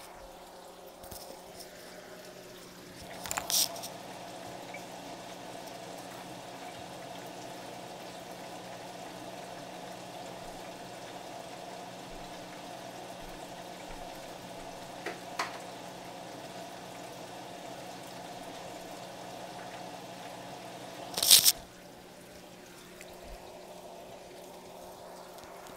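Hot oil bubbling and sizzling inside a closed electric deep fryer as chicken nuggets fry, a steady hiss. Two loud sharp sounds break in, about three seconds in and again about twenty-one seconds in.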